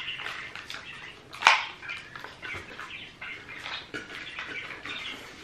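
Eating at a dinner table: many small clicks and mouth smacks from chopsticks, dishes and chewing, with one sharp click about one and a half seconds in.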